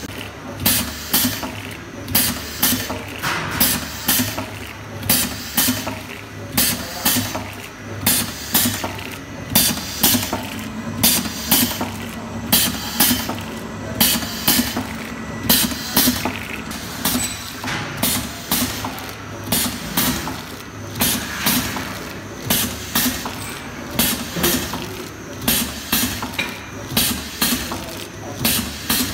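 Automatic vertical form-fill-seal liquid sachet machine running in its cycle: a steady rhythm of sharp clacks and air hisses, about three strokes every two seconds, from the pneumatic piston filler and the sealing and cutting jaws, over a constant low motor hum.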